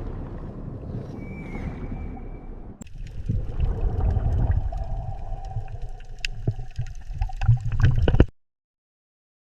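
Underwater water noise, a low rumbling gurgle with a brief high whistle, then scattered clicks and a held tone after an abrupt change about three seconds in. It cuts off to silence about eight seconds in.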